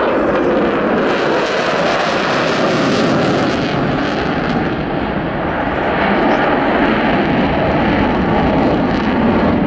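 Eurofighter Typhoon's twin EJ200 turbofans running in afterburner during a display pass: a loud, steady jet noise, crackling through the first few seconds.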